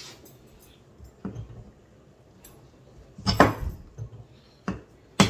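Hammer knocking against backsplash tiles, about five sharp clinking strikes spread out, the loudest about three seconds in and just before the end, as tiles stuck on with tape are worked at to pry them off the wall.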